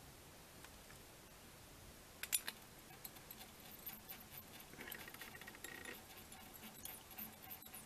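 Faint handling sounds of fly-tying thread being wrapped at the vise to tie off the fly's head: soft rustles and small ticks, with a brief cluster of sharp clicks a little over two seconds in.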